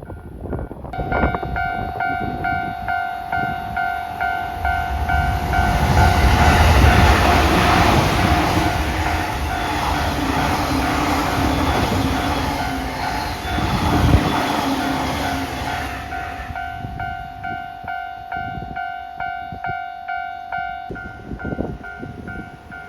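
A railway level-crossing alarm ringing in rapid, evenly pulsed dings, starting about a second in, while a Shonan-Shinjuku Line special rapid electric train passes at about 104 km/h. The train's rush of wheel and running noise swells from about five seconds in and fades out by about sixteen seconds, with a sharp thump near fourteen seconds. The alarm carries on after the train has gone.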